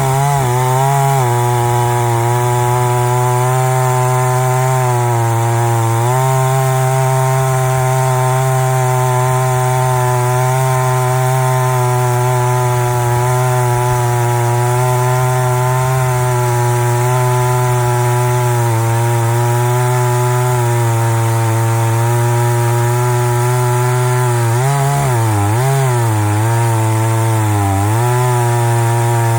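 Two-stroke chainsaw on a chainsaw mill running at full throttle while ripping a slab lengthwise through a log. The engine pitch dips briefly a few times as the saw is loaded down, and wavers more near the end.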